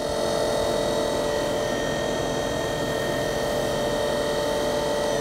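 Nakamura-Tome TW-20MM CNC lathe sub spindle running steadily at 2500 RPM: a constant whine of several held tones over machine hum.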